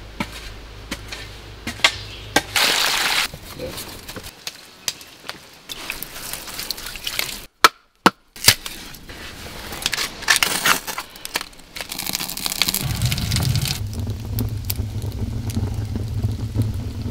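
A run of short cracking, crunching and scraping handwork sounds: a shovel working clay soil and a knife carving a birch stick. It ends with a wood fire crackling in a clay fireplace over a low steady rumble.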